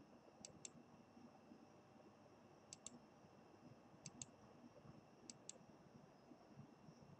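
Computer mouse button clicked five times, about every second and a half, each a quick double tick of press and release, against near silence.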